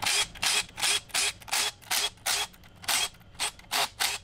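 Cordless impact driver run in short trigger bursts, about three a second, backing out the bolts of an engine's cast oil pan.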